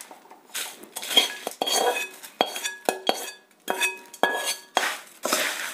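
Metal spoon scraping and clinking against a metal kadhai while tossing dry puffed-rice chivda in leftover spiced oil: a run of irregular strokes, several leaving a short metallic ring.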